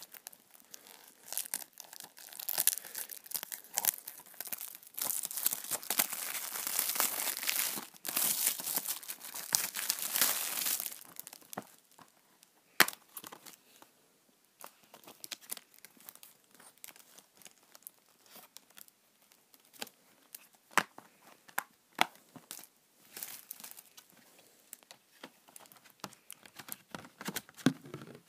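Plastic wrapping being torn and crinkled off a Blu-ray case for about ten seconds. It is followed by a sharp click and scattered quieter clicks and taps as the plastic case is opened and handled.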